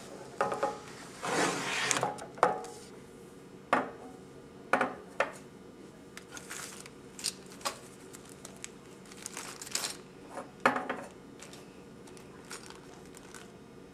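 Hand-handling sounds at a wooden table: a scraping slide about a second in, then scattered knocks and clicks and paper rustling as test materials are moved and set out, over a faint steady hum.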